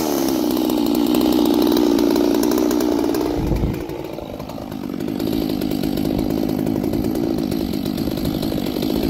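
Two-stroke chainsaw idling steadily just after being revved down. About three and a half seconds in the sound dips briefly, then the idle carries on a little quieter.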